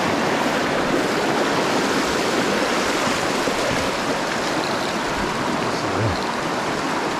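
Shallow, rocky forest creek rushing steadily over stones in a riffle: an even, unbroken rush of water.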